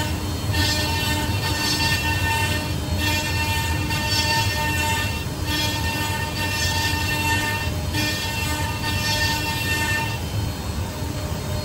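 Multi-spindle CNC wood router running, its eight spindles whining steadily with several fixed tones while they cut rotating wooden chair legs. A high cutting hiss swells and fades about once a second.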